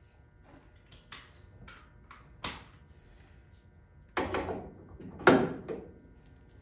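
Wrench work on the front suspension's castle nuts: a handful of separate sharp metallic clicks and clunks, the loudest two about four and five seconds in.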